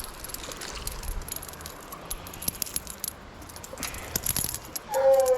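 Fast, irregular metallic clicking and rattling of a spinning fishing reel being cranked to bring in a hooked trout, over a low steady creek hiss. Near the end a coon dog starts a long, held bay.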